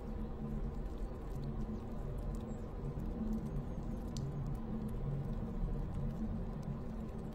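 Dark ambient horror soundscape: a steady low drone with faint, scattered clicks and ticks above it.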